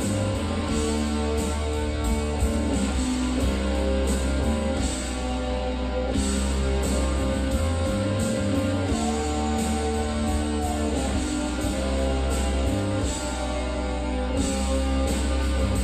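Rock music with guitar over a steady drum beat, played back as an audio system demonstration.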